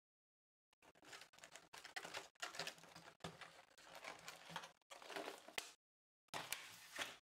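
Thin black plastic chocolate tray crackling and clicking as it is handled and lifted out of a cardboard box, in two stretches with a short pause near the end.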